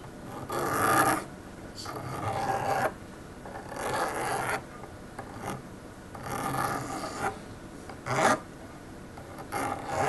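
A small file scraping across the cut end of a coaxial cable's centre conductor in about six short, separate strokes, chamfering and deburring the end so it will fit into the connector.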